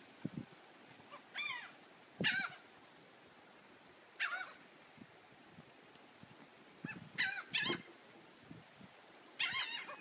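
Seagulls calling overhead while they wheel and catch tossed food: about six short calls a second or two apart, two of them in a quick pair.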